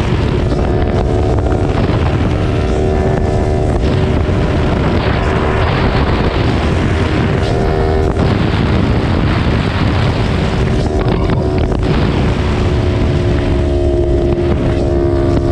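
Kawasaki Ninja 400's parallel-twin engine running at a steady cruise at highway speed, under heavy wind noise on the microphone.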